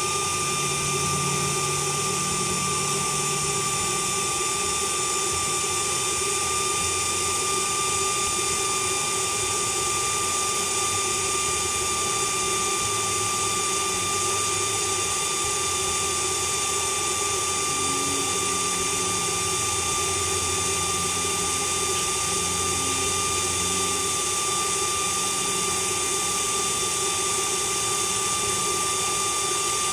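Bolt Buster induction heater running a heat cycle on a seized, rusted nut: a steady high tone with a few fainter steady tones above it, over an even fan-like hiss.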